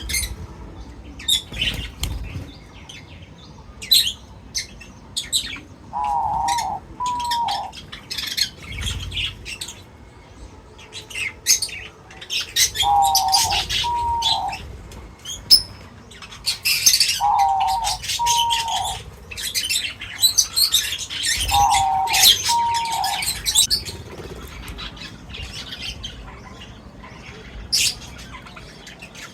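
Several small birds chirping in quick clusters of short high notes, with a lower two-note call repeated four times, every four to five seconds.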